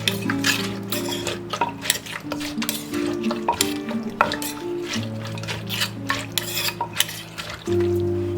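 Kitchen utensils clicking and scraping irregularly against a Thai mortar as a som tum salad with peanuts is mixed, over steady background music.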